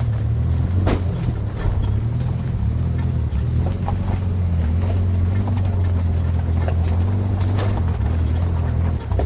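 A vehicle engine running steadily while under way, a low hum, with a sharp knock about a second in and another near the end.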